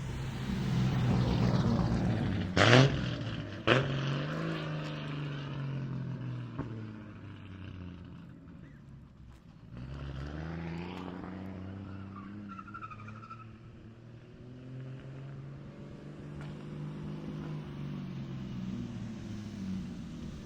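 JZ-swapped Lexus IS300's inline-six engine revving up and down with the throttle, its pitch rising and falling in repeated sweeps. Two sharp bangs stand out about three and four seconds in, the loudest moments.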